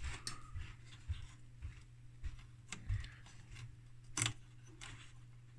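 Scattered light clicks and taps from handling the opened audiometer's circuit boards and connectors, with one sharper click about four seconds in, over a steady low hum.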